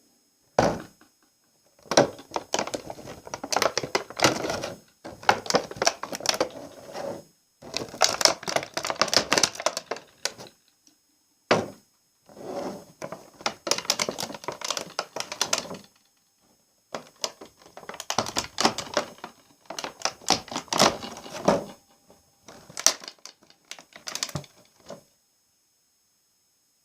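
Close-miked ASMR trigger sounds: rapid clicking, tapping and crackling in about six bursts of a few seconds each, with short silent gaps between them.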